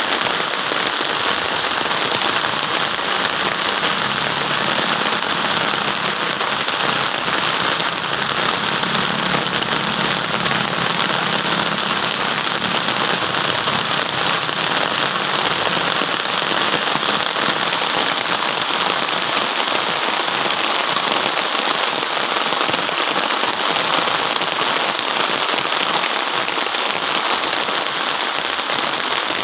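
Steady rain falling, an even wash of drops with no change in strength.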